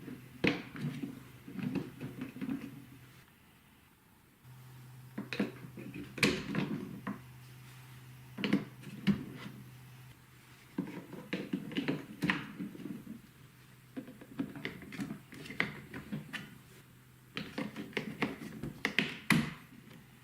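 Balls rolling and clattering down a TrixTrack toy marble run's wave-slope track. Bursts of quick plastic clicks and taps come in clusters a second or two apart, with short lulls between them.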